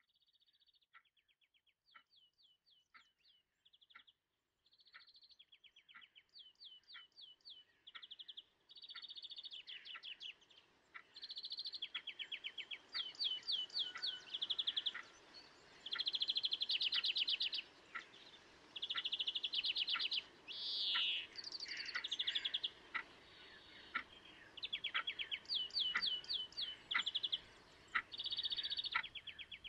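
Birds singing: a steady stream of quick chirps and rapid trills that fades in and grows louder over the first ten seconds or so.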